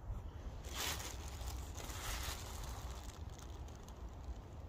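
A plastic bag rustling in several soft bursts as a spoon scoops powder out of it.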